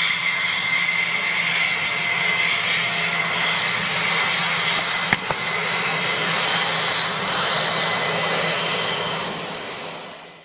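An F-16 Block 52+'s Pratt & Whitney F100 turbofan running as the jet rolls along the runway: a steady jet rush with a high whine, fading out near the end. A single sharp click about five seconds in.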